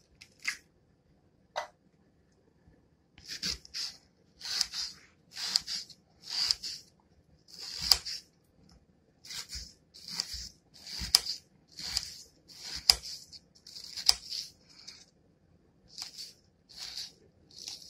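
Kitchen knife dicing a red onion on a granite countertop: a few scattered cuts, then from about three seconds in a steady run of crisp cuts, about two a second, some with a knock of the blade on the stone.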